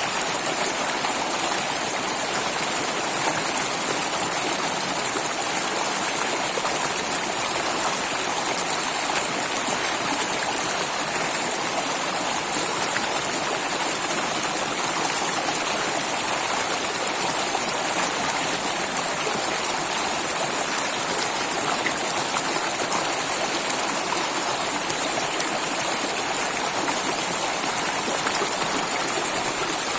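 Flowing water, running steadily as an even, unbroken rush with no pauses or changes.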